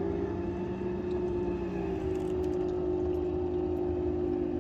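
Boat motor running steadily: a constant hum over a low rumble, its pitch shifting slightly about two seconds in.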